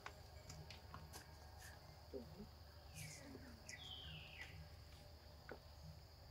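Faint outdoor ambience: a steady high-pitched insect drone under a low rumble, with a few short falling chirps about three to four seconds in and some light clicks.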